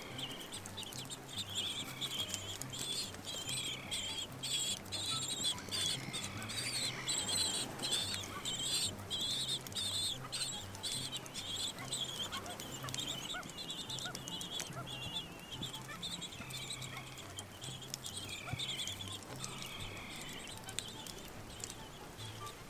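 Little blue penguin chicks begging for food: a dense run of rapid, high-pitched peeping calls with a few short falling notes mixed in, loudest in the middle.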